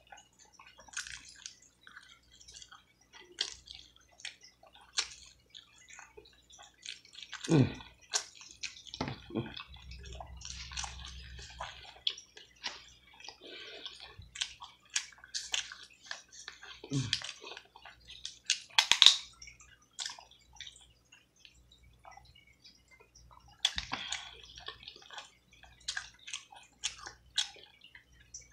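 Close-miked eating sounds: wet chewing and smacking on sauce-covered fried chicken, with sticky tearing as the meat is pulled apart by hand. Short irregular crackles throughout, with a louder cluster about two-thirds of the way through.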